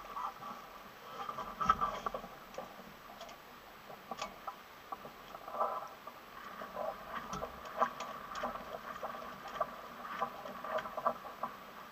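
Small waves lapping and gurgling against the hull of a small sailing catamaran as it moves slowly through the water, in irregular little splashes and pops.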